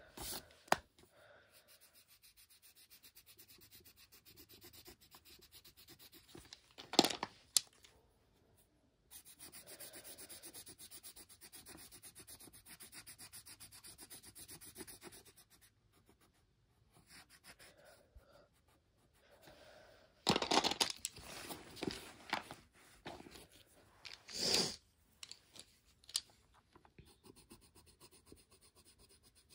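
Coloured pencil shading on a paper colouring page: a fast, even scratching of back-and-forth strokes. A few louder clicks and rustles come about seven seconds in and again after twenty seconds as pencils are handled and swapped.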